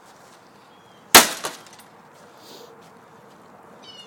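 A single sharp crack about a second in, from a printer's plastic casing being pried apart with a tool.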